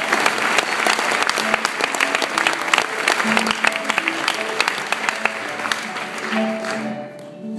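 Audience applauding, with a concert harp playing sustained single notes beneath it. The clapping thins out and dies away near the end, leaving the harp.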